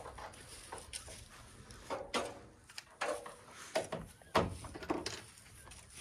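Scattered clicks and knocks of screws and a cordless impact driver handled against the wooden framing of a coop, with several sharper knocks in the middle seconds; the driver does not run steadily.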